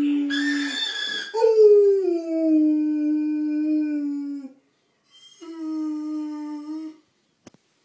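Dog howling, set off by a phone ringing: a howl trailing off, then a long howl that slides down in pitch and holds, then a shorter one. A single short click near the end.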